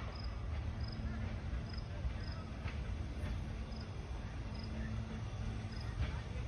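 Short high chirps at one pitch, repeating irregularly about once a second, like an insect chirping, over a steady low rumble.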